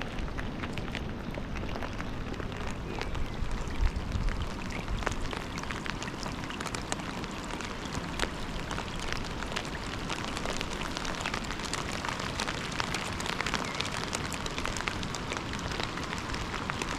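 Heavy rain falling, a steady hiss dense with the ticks of individual drops hitting.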